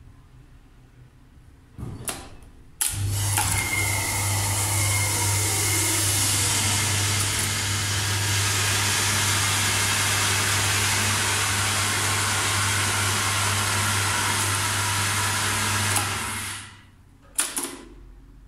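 Relays click, then a contactor pulls in with a sharp clack about three seconds in. The hydraulic pump motor of a 1993 Schindler hydraulic elevator then runs steadily for about thirteen seconds, with a strong mains hum under a rushing noise. It winds down near the end, and contactors clack as they drop out.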